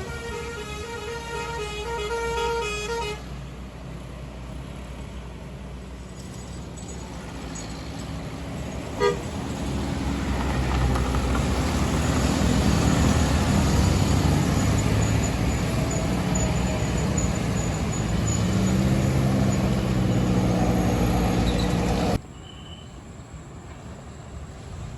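A bus's telolet basuri musical horn plays a quick tune of changing notes for about three seconds. Then a bus engine grows louder as the bus draws near and passes close by, with a single sharp click partway through. The engine sound cuts off suddenly near the end.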